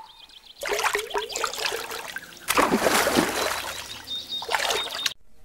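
Water splashing and trickling as a sound effect under an animated logo. It starts about half a second in, grows louder halfway through and cuts off abruptly near the end.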